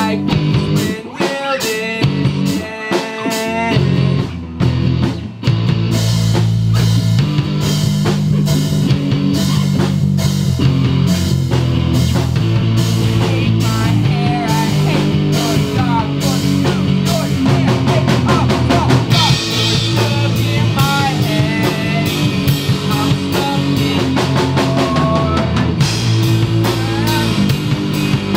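Live rock band playing electric guitars, bass guitar and drum kit. It starts sparse, with picked guitar notes and a few drum hits, and the full band comes in about five seconds in.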